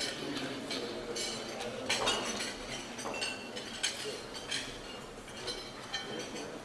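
Cutlery and crockery clinking: a scatter of short, sharp clinks and taps, several a second, over a steady background hum of the room.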